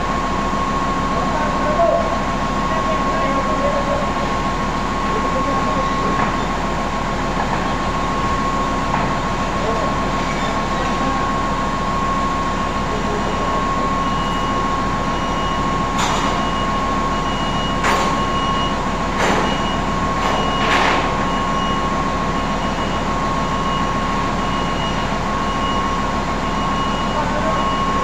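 Steady loud machinery hum with a constant whine. In the middle come four sharp knocks, typical of metal ductwork being handled and fitted.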